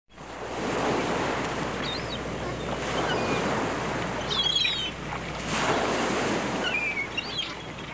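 Sea waves washing ashore in slow surges every two to three seconds, with a few short high chirps over them.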